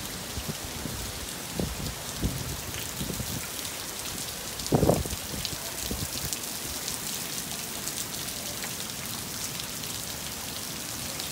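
Heavy hurricane rain falling on a flooded street and standing water: a steady hiss of drops with scattered sharp ticks, and a few dull low bumps, the loudest about five seconds in.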